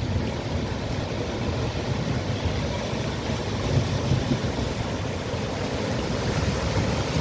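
Steady rushing noise of rain and floodwater on a waterlogged street, heaviest at the low end, with no single distinct event.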